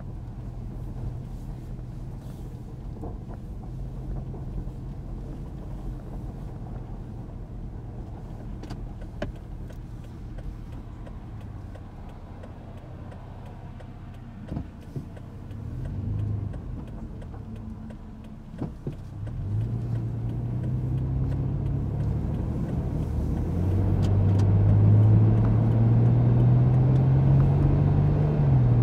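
Vehicle engine heard from inside the cab, running low and steady at first, then pulling away and accelerating, its pitch climbing and the sound getting louder. The pitch drops back near the end at an upshift.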